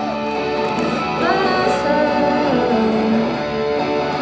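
Indie rock band playing live: electric guitars with a woman singing a phrase about a second in and starting another near the end.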